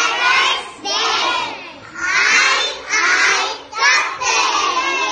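A class of young children chanting loudly in unison, in drawn-out phrases with short breaks between them.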